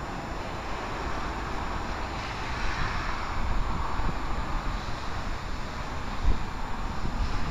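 Wind buffeting the microphone over a steady outdoor rumble, swelling near the middle, with a single low thump about six seconds in.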